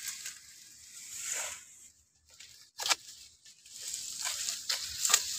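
Sickle cutting tall sorghum (jowar) fodder by hand: dry leaves and stalks rustling, with a few sharp snaps as stalks are cut, loudest at the start, about three seconds in and near the end.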